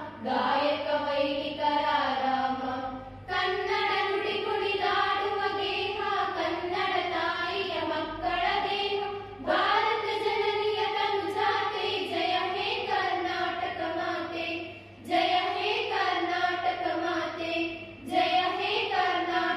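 A group of girls singing together in unison into microphones over a PA, in long phrases with brief pauses between them.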